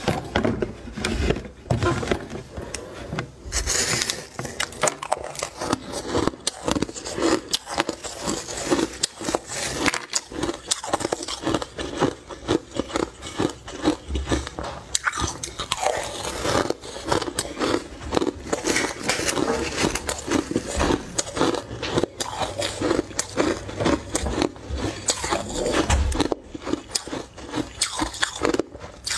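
Crushed ice being bitten and chewed: a dense, continuous run of crisp crunches.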